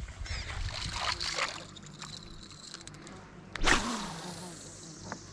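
Water splashing and trickling from a kayak paddle, with one sharper, louder splash about three and a half seconds in.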